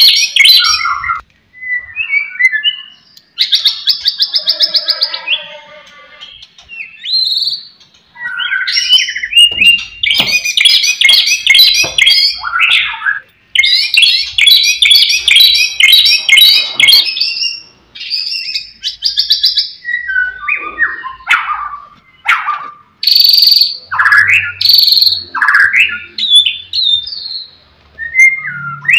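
White-rumped shama singing a loud, varied song. Fast rattling trills of quickly repeated notes alternate with sliding whistled notes, with short pauses between phrases.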